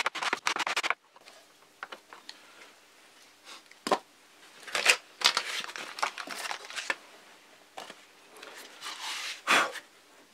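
Quick back-and-forth rasping of a clear plastic canopy sanded over coarse sandpaper, stopping about a second in. Then sandpaper and masking tape are handled and peeled off the fuselage: scattered paper crinkles and rustles with a few sharper scrapes.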